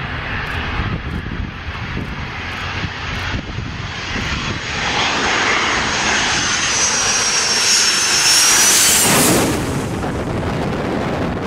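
Boeing 737-200's Pratt & Whitney JT8D turbofan engines on a low approach. The jet noise grows louder as it nears, with a high whine that falls slightly in pitch as it passes overhead about eight to nine seconds in, then drops off suddenly.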